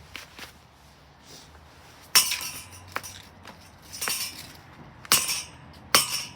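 Parts of a Blaupunkt fan heater being smashed: a few light clicks, then four sharp clinking, cracking blows about a second apart in the second half.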